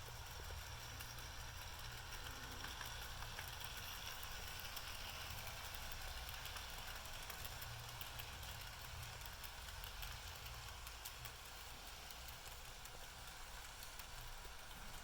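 Bachmann Spectrum GP-30 and GP-35 model diesel locomotives running on track: a faint steady motor whir with scattered light clicks of wheels over the rails.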